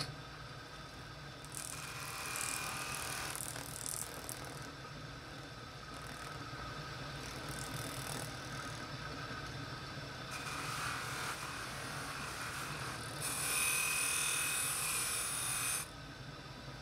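An electric polishing motor runs steadily with a cloth buffing wheel. A hissing scrub rises several times as a brass lamp burner is pressed against the wheel, loudest for a couple of seconds near the end.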